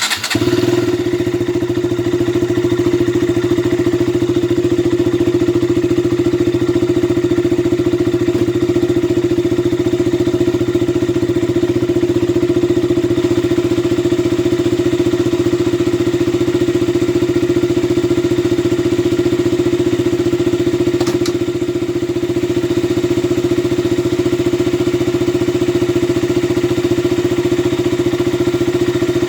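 KTM Duke 200's single-cylinder four-stroke engine catching right at the start and then running at a steady, even speed.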